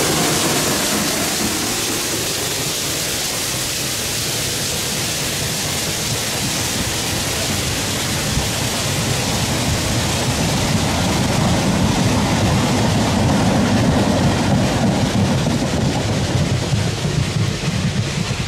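Museum railway train running past: a steady rushing noise, with rumbling that grows louder about ten seconds in and eases off near the end.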